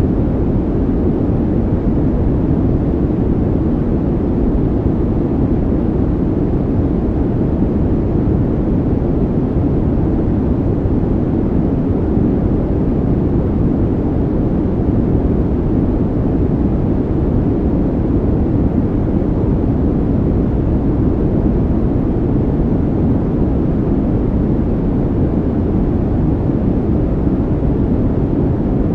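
A steady, unbroken low rumbling noise with no rhythm or events: a calming background noise track laid over the video.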